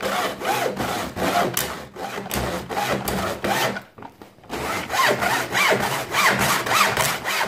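Hand hacksaw cutting across white PVC cable trunking in repeated back-and-forth strokes, with a brief pause about four seconds in.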